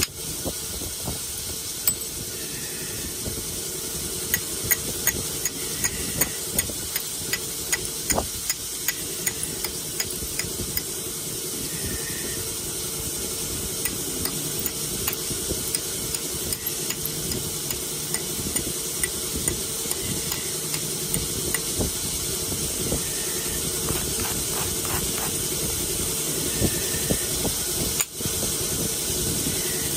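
Flintknapping: a round hammerstone striking and rubbing along the edge of a thin stone flake, giving a run of sharp, irregular clicks over a steady hiss.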